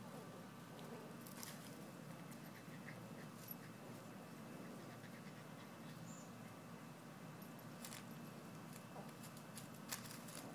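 Shih Tzu-terrier/Dachshund cross puppies and an adult dog playing on grass and dry leaves, faint scuffling with a few sharp clicks, the loudest near the end, and a brief high squeak about six seconds in.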